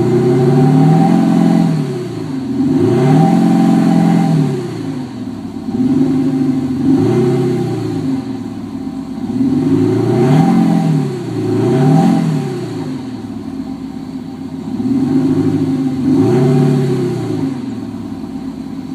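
Audi A6 (4G) revved repeatedly, its engine note played through retrofitted Audi Active Sound actuators that replace the two rear silencers. Each rev rises and falls in pitch, often two in quick succession.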